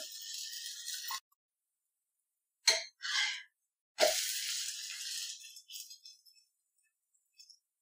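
Dosa batter sizzling on a hot dosa pan, cutting off about a second in; then a sharp knock and a short rustle, and about four seconds in a fresh ladle of wheat-flour dosa batter lands on the pan with a soft thump and sizzles, fading away over about two seconds as it is spread.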